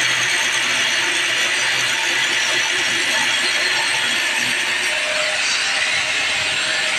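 Angle grinder with an abrasive cut-off disc cutting into a steel leaf spring, a steady high grinding hiss. About five to six seconds in, the disc is lifted off the steel and the grinder keeps running.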